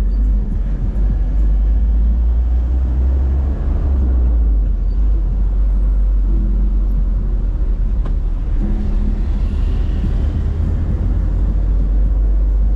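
Steady low rumble of a car moving along a road.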